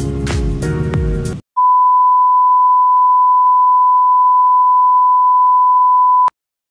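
Background music with a beat stops about a second and a half in. A single steady high beep follows, the test tone that goes with TV colour bars, holds for about four and a half seconds and cuts off suddenly with a click.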